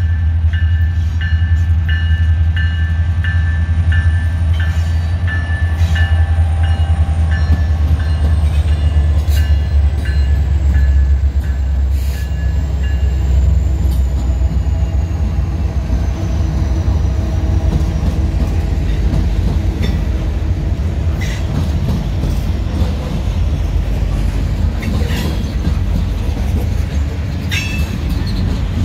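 Union Pacific and Norfolk Southern diesel-electric freight locomotives passing close with a deep, steady engine drone and a regular high ding about twice a second. After about fourteen seconds the drone thins as covered hopper cars roll by, with wheel clicks over the rail and a thin, slowly falling wheel squeal.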